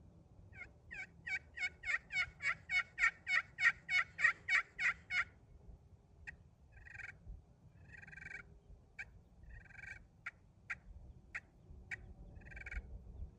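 Slate-over-glass turkey pot call in a tiger wood pot, played with a canary wood striker. It gives a run of about fifteen quick yelps that grow louder, then a scattering of sharp single clucks and softer, shorter yelps.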